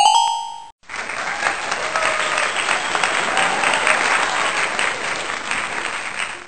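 A short bright chime, then a crowd applauding steadily for nearly six seconds.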